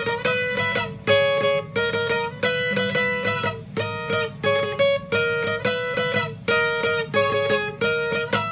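Outro music: plucked guitar notes in a steady, repeating pattern.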